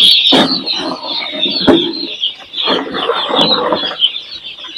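A large crowd of newly hatched chicks peeping together in their delivery boxes, a dense high chirping, with a couple of sharp knocks.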